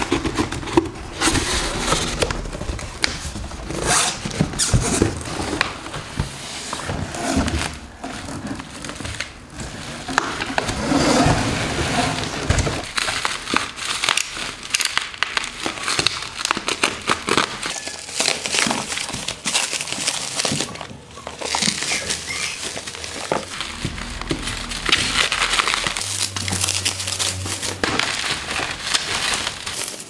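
Plastic bubble wrap crinkling and rustling as small boxes are unwrapped and the wrap is cut open with a utility knife, along with cardboard box flaps being handled. The sound is a busy, irregular crackle full of small sharp clicks.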